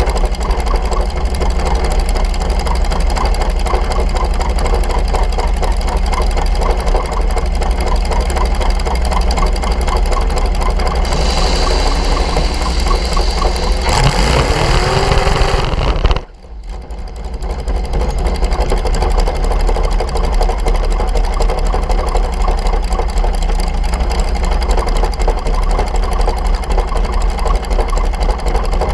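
Dragster engine idling loudly and steadily. Past the middle, a rush of hiss with a rising tone builds for a few seconds, then the sound cuts out abruptly and fades back in to the same idle.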